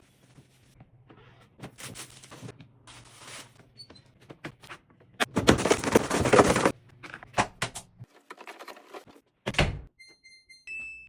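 Kitchen cleaning and tidying sounds: scattered knocks and clatters of things being handled, a louder rushing, scrubbing stretch of about a second and a half midway, and a thump. A few short high beeps come near the end.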